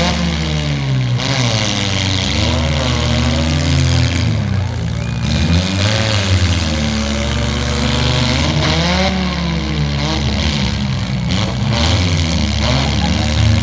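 Demolition derby car engines revving, their pitch rising and falling again and again.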